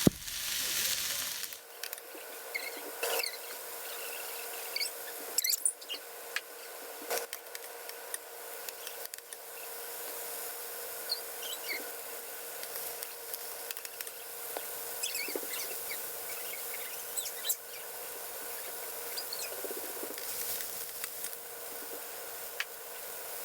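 Chopped onion and green bell pepper frying in hot canola oil in a pan: a steady sizzle with scattered pops and crackles, louder for the first second and a half, then settling quieter.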